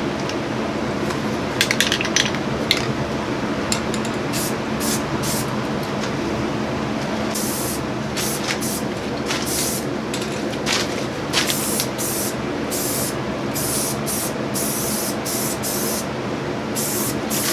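Spray paint going onto the mini bike's frame in more than a dozen short hissing bursts, with a few quick clicks about two seconds in, over a steady low hum.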